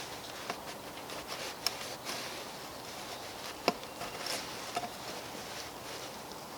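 A steel multi-tool blade digging into the ground to cut a divot: scattered scraping ticks with two sharp knocks, about a second and a half and nearly four seconds in, over a faint steady buzz.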